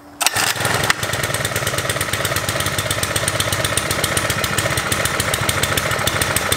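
Small 49cc four-stroke engine pull-started, catching about a quarter second in and then running steadily with rapid, even exhaust pulses. It is running on choke: the freshly cleaned carburetor won't let it idle once the choke is off.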